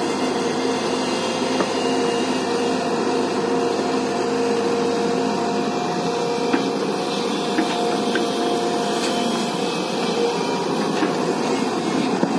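JCB tracked excavator's diesel engine running steadily under load while it digs, dumps and swings, with a few light knocks.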